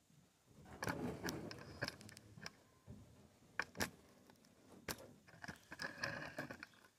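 Handling noises from a large blue Fortlev plastic water tank being gripped and shifted: scattered knocks and scrapes, a few sharp knocks midway, and a rustling scrape near the end.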